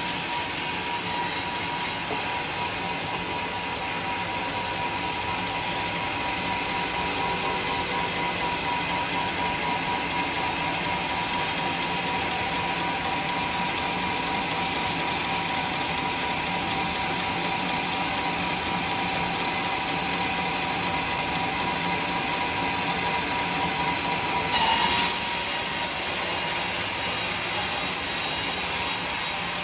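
Band sawmill cutting through a teak log: the running blade makes a steady sawing noise with a faint whine over it. About 25 seconds in there is a short, sudden louder burst, after which the whine fades.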